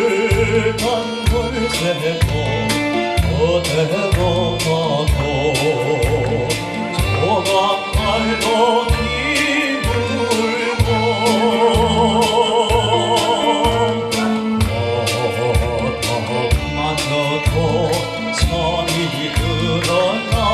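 Korean trot song: a man singing with vibrato over band accompaniment with a steady bass beat.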